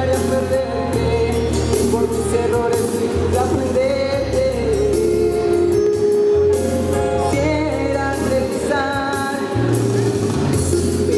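A boy singing into a microphone over backing music with a steady bass line; partway through the voice drops out and the music carries on alone as an instrumental break.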